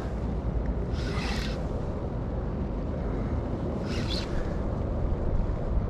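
Steady low wind rumble on the microphone over open water, with two short hissing bursts, one about a second in and one about four seconds in.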